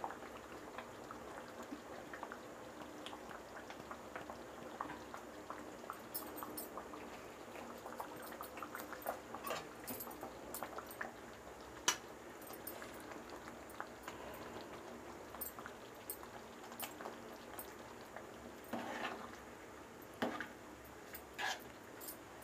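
Semiya kesari, vermicelli in thickening sugar syrup, simmering in an aluminium pot with a faint, steady patter of small bubbling pops. A metal spoon stirs it, with a sharp clink against the pot about twelve seconds in and a few louder scrapes near the end.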